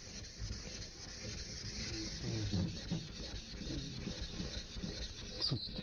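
Plane blade being rubbed back and forth on a wet waterstone: a steady gritty scraping of steel on stone that stops shortly before the end.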